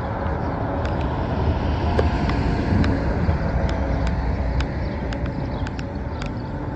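Road traffic: a vehicle passes on the road alongside, swelling to a peak two to three seconds in and fading. Over it, trekking-pole tips click on paving stones about twice a second.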